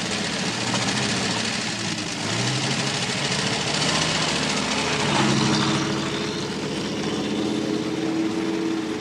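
Vintage car engine running, its pitch climbing about five seconds in as the car pulls away.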